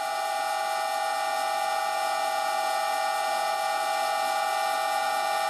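Old Karger lathe running steadily at 600 RPM during a spindle warm-up run, a steady whine of several tones.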